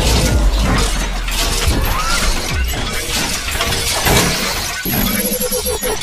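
Sound effects of an animated video intro: dense crackling and whooshing noise with many sharp hits over a low rumble, loud throughout, with a brief pair of steady tones about five seconds in.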